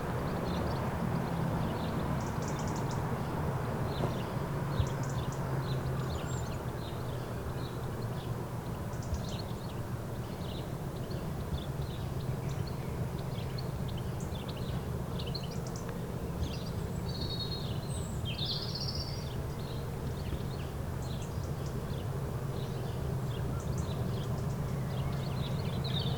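Birds chirping and trilling over a steady low rumble in the background.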